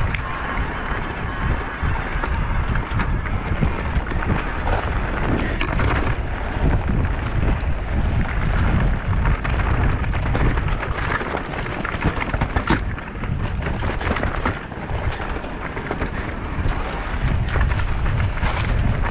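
Wind buffeting the microphone of a mountain biker's on-board camera during a downhill ride, over the noise of tyres rolling on a dirt trail. Frequent short clicks and knocks come from the bike rattling over bumps and stones.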